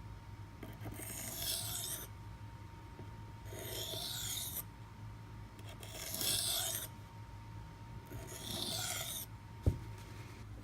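A Maxamet-steel knife edge drawn across a 400-grit CBN sharpening stone in light finishing passes: four strokes of about a second each, roughly two seconds apart. A single knock comes near the end.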